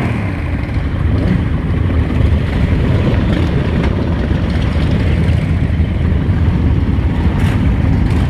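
Cruiser motorcycle engines idling: a steady, loud low rumble.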